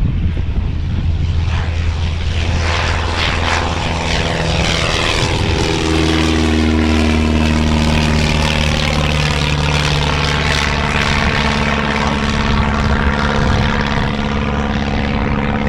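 Single-engine propeller light aircraft flying past, its steady engine drone dropping in pitch about five seconds in as it goes by.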